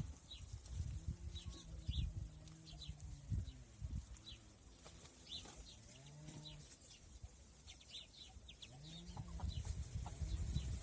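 Farmyard animals calling: three drawn-out low calls, one about a second in, one midway and one near the end, over frequent short high chirps. Low wind rumble on the microphone.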